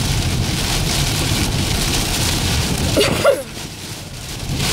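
Heavy rain hitting the windshield and body of a moving car, over tyre and road rumble on the wet highway. The noise drops off sharply about three and a half seconds in.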